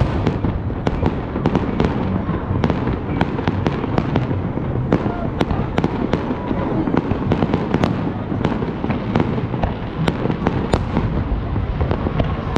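Aerial fireworks going off: a continuous low rumble of booms with many sharp cracks and pops on top, two or three a second.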